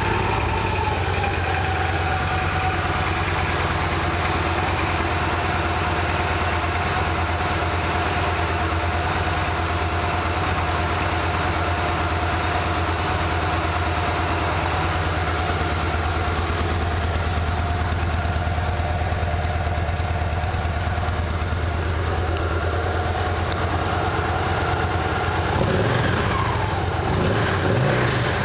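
2014 Victory Cross Country Tour's 106 cubic-inch V-twin idling steadily just after starting, the idle dropping and settling in the first second. Near the end the revs rise briefly, a light blip of the throttle.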